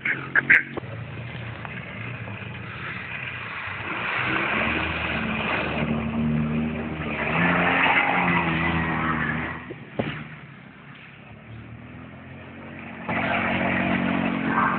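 Quad bike engine revving up and easing off in three surges, with a quieter, lower-revving lull between the second and third. A sharp knock comes just after the start and another about ten seconds in.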